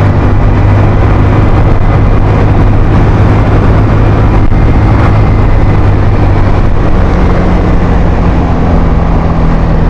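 Suzuki Skydrive's 125 cc single-cylinder four-stroke scooter engine running hard at full throttle, pulling up a steep climb with two riders aboard. Its engine speed holds steady.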